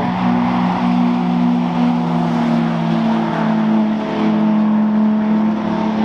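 Sports car engines running hard on a race circuit: a loud, steady engine drone that holds a nearly constant pitch as the cars pass.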